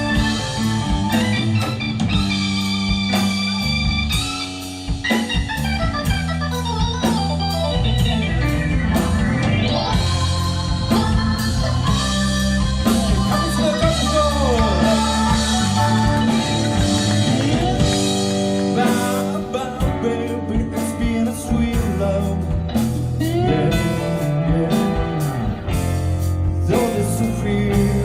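Live rock band playing a slow blues-rock instrumental passage: an electric guitar lead with gliding, bending notes over sustained organ chords, bass and drums.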